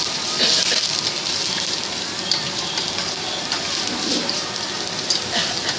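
Egg frying in an oiled pan over a high gas flame: a steady sizzle, with a few sharp clicks scattered through it.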